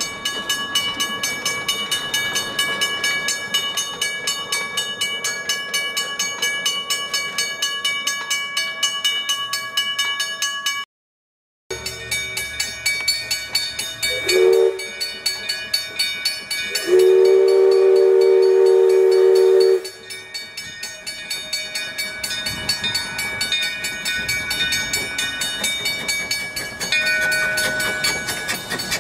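Henschel steam tank locomotive's whistle: one short toot, then a loud blast held for about three seconds. Under it, a fast, steady clatter with ringing tones, broken by a short gap early on.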